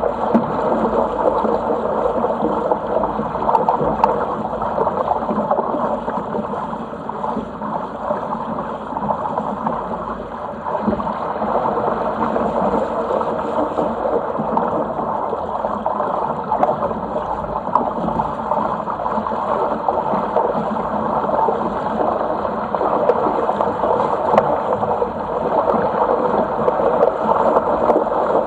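Water rushing and splashing along the hull of a Sigma 8 metre sailing yacht under way, a steady, unbroken wash.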